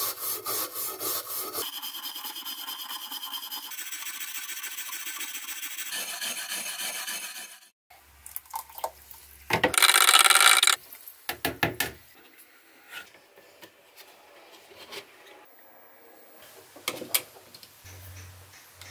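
A hand file rasping over a rusty Wagner cast iron cornbread pan in quick repeated strokes for about eight seconds. After a break, a metal spoon stirs and clinks in a plastic tub of water, with one loud scrape about ten seconds in.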